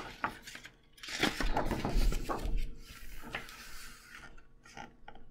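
Picture book's paper pages being turned by hand: a burst of page rustling and rubbing starting about a second in, with a few light clicks and taps from handling the book around it.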